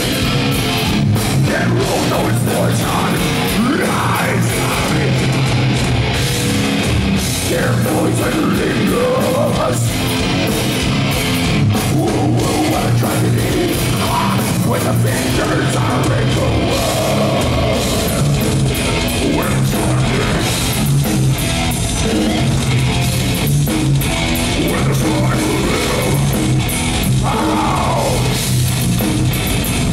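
Death metal band playing live: distorted electric guitars over a drum kit, with vocals, loud and unbroken.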